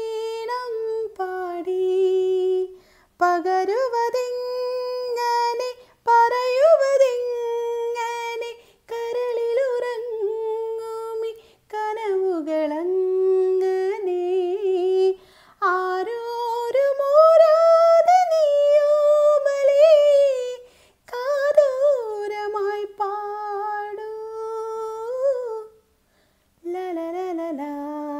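A woman singing a wordless melody, unaccompanied, in long held phrases with short breaks between them. The highest and loudest phrase comes a little past the middle.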